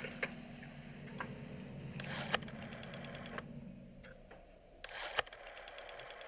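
Desk telephone's bell ringing twice, a rapid metallic clatter lasting just over a second each time, the second ring about three seconds after the first. A low steady hum underneath fades out about four seconds in.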